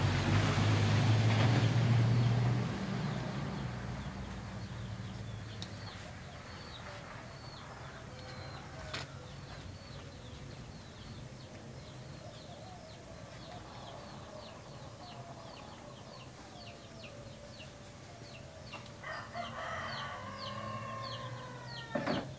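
A low rumble for the first two or three seconds, then small birds chirping in quick repeated high notes, and a rooster crowing once near the end, a single crow of about three seconds.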